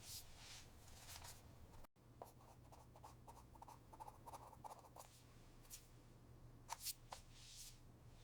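Faint, irregular scratching and rubbing strokes, as of hands working at something close by, over a steady low hum. A brief dropout about two seconds in.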